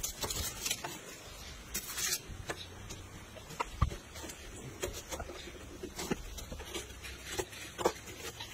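Knife peeling and slicing red onions on a wooden stump chopping block: scattered light clicks and taps, with two louder knocks about four seconds in and near the end.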